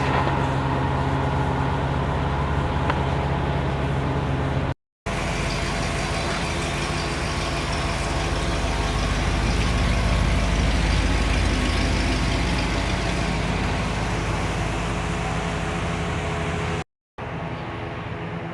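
1977 Chevrolet Corvette's V8 engine idling steadily just after a cold start, with two brief dropouts where the sound cuts out.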